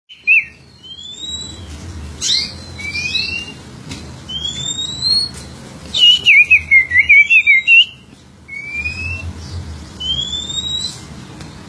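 Oriental magpie-robin (kacer) singing: a series of clear, rising whistled notes, one every second or so, with a quick run of rapid warbled notes about six seconds in.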